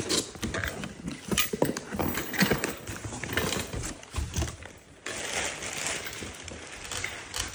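Cardboard and a hollow tube being handled by a capuchin monkey: an irregular run of taps, knocks, scrapes and rustles.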